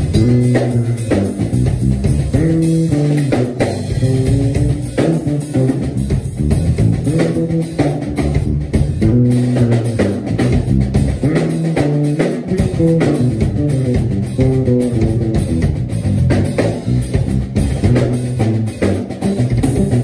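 Fender Jazz electric bass playing a busy, moving bass line over a drum kit keeping a steady groove.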